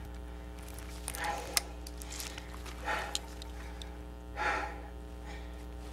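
A person's heavy, slow breathing, three breaths about a second and a half apart, over a steady low hum, with a few faint clicks as wires are handled.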